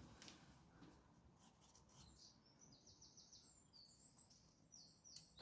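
Near silence with faint birdsong: groups of quick, high chirps from about two seconds in.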